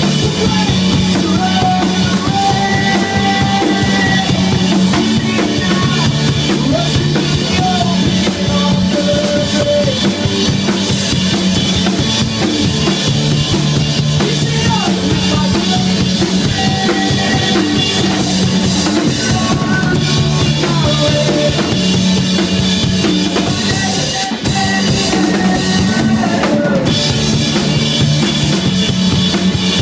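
Live rock band playing loudly: an amplified Telecaster-style electric guitar over a drum kit with bass drum and snare.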